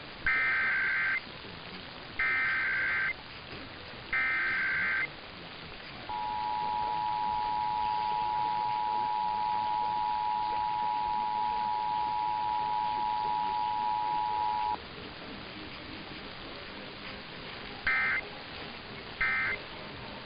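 Emergency Alert System tones off a broadcast radio feed: three SAME digital header bursts, each a warbling squawk of about a second, then the steady two-tone attention signal held for about nine seconds, then two much shorter data bursts near the end. A steady hiss lies underneath.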